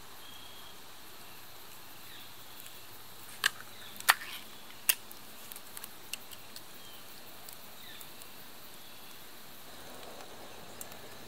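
A pull-tab food can being opened: three sharp metallic clicks between about three and five seconds in, then a few small ticks, over a faint steady hiss.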